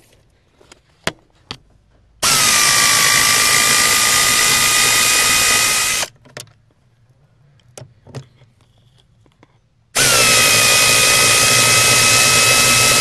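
Power drill backing out the screws of the steering column's firewall seal. It makes two runs of about four seconds each, a steady motor whine that dips slightly in pitch as each run starts, with a few light clicks between them.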